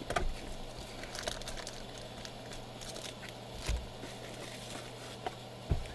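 Plastic wrapping and foil trading-card packs crinkling and rustling as they are handled, with three soft thumps as things are set down on the table, over a steady low hum.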